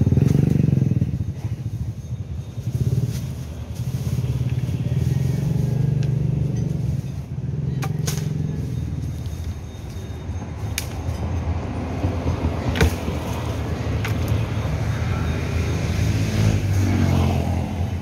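Street traffic: motorcycle and car engines running past, swelling and fading, with a few sharp knocks.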